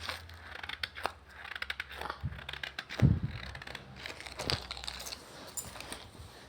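Crinkling and rustling as crinkly material is handled and crushed, with scattered clicks and a louder thump about three seconds in.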